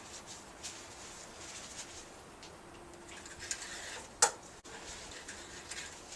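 Engine oil dipstick being handled during an oil level check: faint light ticks and scrapes, with one sharp click about four seconds in.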